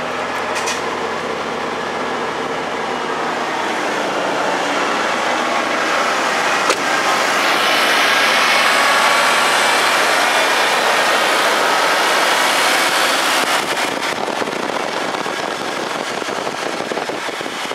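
A 1991 Ford F-150's engine idling steadily, freshly started. The running grows louder and noisier for several seconds midway, with one sharp click about seven seconds in.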